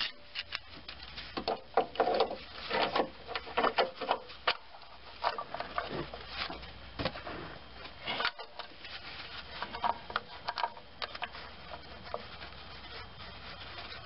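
Scattered light clicks, knocks and scrapes of a serpentine belt tensioner and its bolt being worked into place on the engine by a gloved hand. The sounds are irregular, with no steady rhythm.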